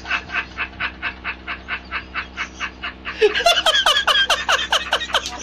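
A man laughing hard, a rapid run of 'ha-ha-ha' pulses about six a second. About three seconds in it grows louder and higher-pitched, almost like honking.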